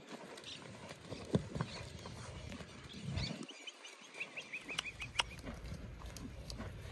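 A horse's hoofbeats on a sand arena floor, soft irregular thuds that settle into a steadier beat of about three or four footfalls a second in the second half as the horse on the lunge line moves from canter toward a walk. Near the middle comes a quick run of high chirps.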